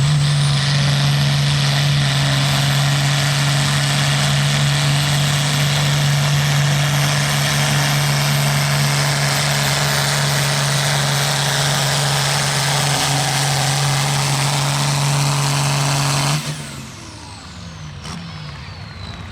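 Pulling tractor's engine held wide open at a steady pitch, with a high whine over it, during a pull down the track. About sixteen seconds in it suddenly drops off as the throttle is let off, and the whine winds down in pitch.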